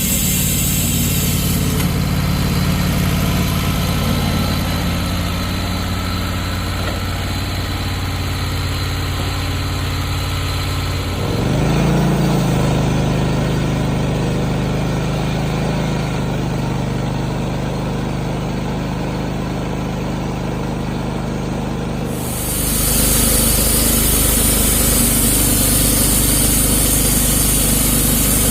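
Wood-Mizer portable band sawmill's engine running steadily. About 11 seconds in its note changes and rises slightly. About 22 seconds in, a loud hiss of the band blade sawing through red oak joins it.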